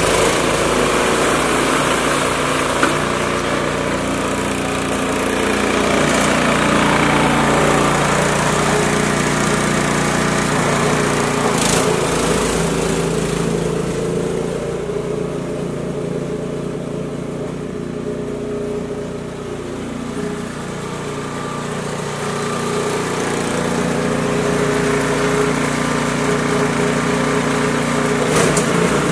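Husqvarna two-stage snowblower's single-cylinder engine running steadily while clearing snow. It grows somewhat fainter about halfway through as the machine moves off, and louder again near the end as it comes back.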